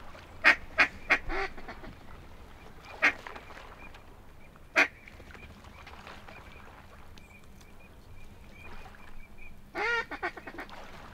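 Teal quacking close by in short, loud calls: a quick run of four about half a second in, single quacks around three and five seconds, and a longer burst of calls near the end.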